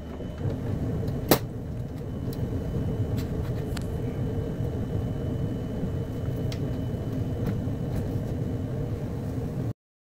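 Small-form-factor desktop PC case being handled and stood upright: one sharp click about a second in, then a few faint knocks, over a steady low rumble. The sound cuts off suddenly just before the end.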